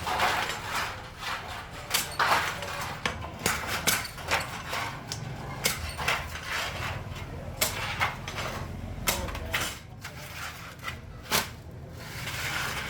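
Irregular sharp knocks and clanks of metalwork during tea kettle making, several a second, over a steady low hum.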